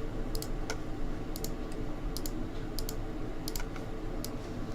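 Sharp clicks at a computer, one or two a second and often in close pairs, over a steady low hum.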